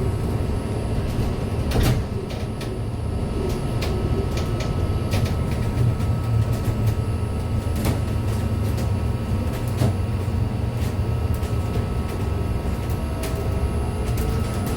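Ride inside a MAZ-303E23 battery-electric bus: steady road rumble with scattered rattles and knocks from the body, a thin steady whine, and a rising whine near the end.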